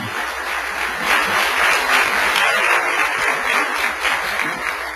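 Large audience applauding. The clapping builds over the first second, holds steady, then dies away near the end.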